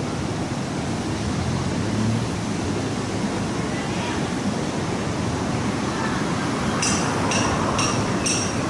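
Storm-driven sea surf and wind on the shore, a steady rush of noise. Near the end, a run of short, high ringing clinks, about two a second.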